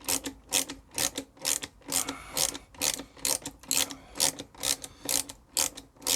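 Socket ratchet clicking in short, even back-strokes, about two clicks a second, as a Torx 40 bit undoes the rear brake caliper bolts on a BMW R1250GS.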